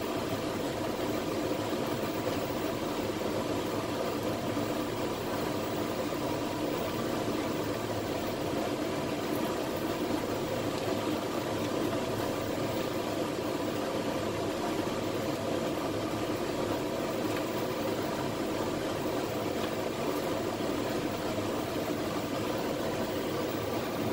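Steady rumbling hiss of water boiling in the double boilers under the soap pots, picked up by the camera's built-in microphone.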